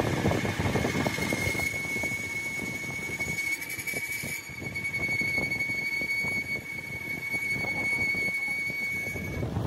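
Metal being machined: a steady high-pitched squeal over an irregular clatter, the squeal cutting off near the end.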